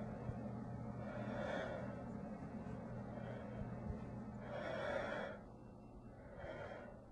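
A person breathing heavily: long rushing breaths every second or two, the loudest about five seconds in, over a low steady hum.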